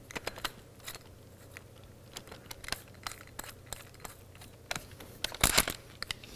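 Scattered light clicks and rattles of a cordless drill's chuck and a stop countersink cage being handled as the countersink is fitted into the drill, with a louder cluster of clicks about five and a half seconds in.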